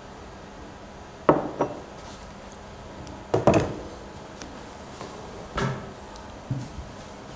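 A handful of short knocks and bumps at uneven intervals, as of objects being handled and set down on a table, in a quiet room; two pairs, about a second in and midway, are the loudest.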